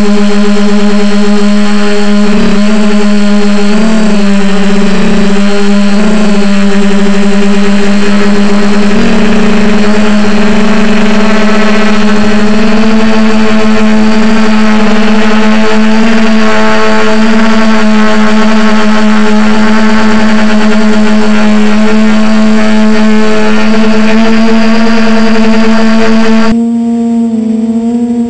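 DJI F450 quadcopter's four motors and propellers buzzing loudly in flight, heard from the camera on the frame. The hum wavers in pitch over the first few seconds, then holds steady and creeps slightly higher. Near the end it abruptly becomes quieter and duller.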